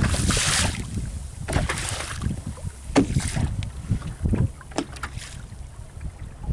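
Sea water slapping and splashing against the hull of a small drifting fishing boat in a few surges, over a steady low rumble of wind buffeting the microphone.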